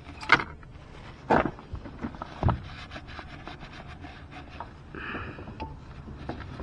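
Hand work on an open scooter engine crankcase: three sharp knocks in the first two and a half seconds, scattered light clicks, and a short stretch of rubbing about five seconds in.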